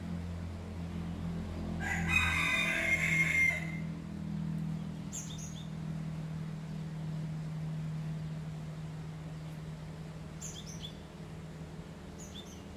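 A rooster crows once, about two seconds in. Short high bird chirps come a few times afterwards over a steady low hum.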